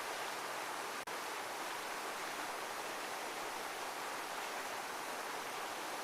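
Steady, even rushing-water noise like a heavy waterfall, with no rise and fall of breaking waves. There is a momentary dropout about a second in.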